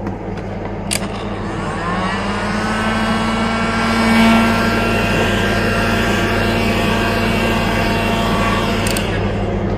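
Heat gun running and blowing hot air onto a car side-mirror glass to soften the adhesive holding it: a click about a second in, then the fan motor's whine rises and holds steady over the rush of air.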